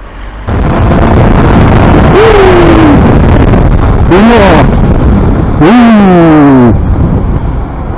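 Motorcycle riding at speed, with heavy wind noise on the helmet microphone, starting abruptly about half a second in. Three short pitched sounds cut through it, each sliding down in pitch: about two, four and six seconds in.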